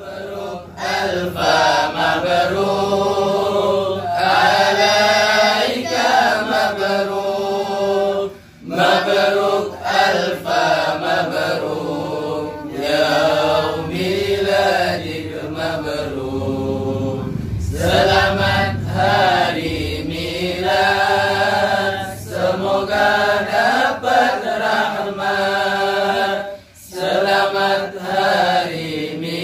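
A group of men and boys chanting a devotional song together in unison, in long flowing melodic phrases with two brief pauses for breath.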